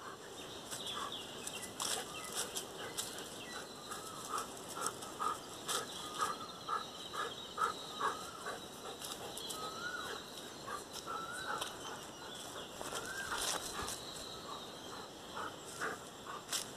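An animal's repeated short high-pitched calls, about two a second, some rising in pitch, with a few faint clicks.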